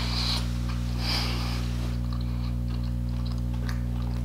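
A person chewing a mouthful of bacon burger close to the microphone, with small wet clicks and two breathy sniffs through the nose near the start. A steady low hum runs underneath.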